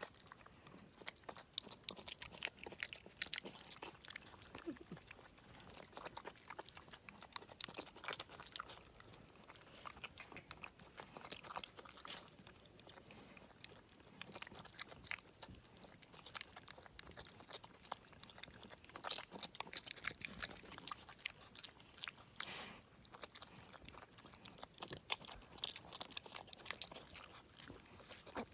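Young pig chewing and eating noisily, a run of irregular wet clicks and smacks with no steady rhythm.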